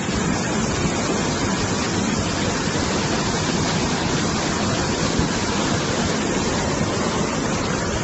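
Swollen, muddy floodwater of a jungle river rushing and churning over rocks at a waterfall, a steady unbroken rush of water.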